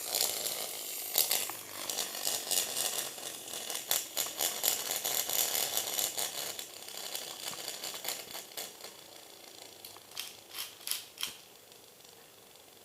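A Beyblade spinning top spinning and rattling in its stadium, with a dense run of small clicks and knocks that thin out and grow quieter as it slows. A few sharper separate knocks come near the end.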